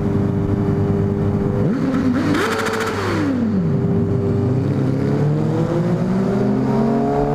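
Sport motorcycle engines in an underpass: a steady engine drone, a Honda CBR1000RR Fireblade's inline-four revved up and back down about two to three seconds in, then the engine pitch climbing steadily near the end as the bikes accelerate.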